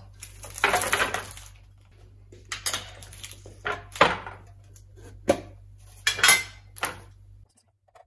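Kitchen containers and spice packets being handled: a rustle about a second in, then a run of separate clinks and knocks, over a low steady hum that stops near the end.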